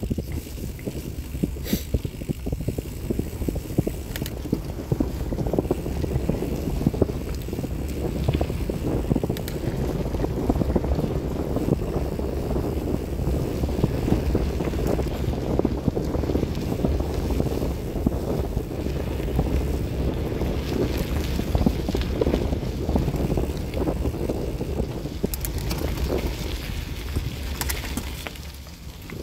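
Wind buffeting the microphone of a bicycle-mounted camera, mixed with the steady grainy noise of bicycle tyres rolling over a dirt and gravel track. The noise eases off near the end.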